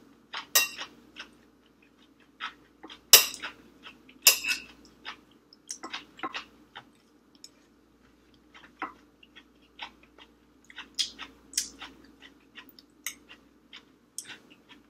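A metal spoon clinking and scraping against a glass rice bowl in a few sharp clicks, between close-miked chewing and mouth sounds of someone eating.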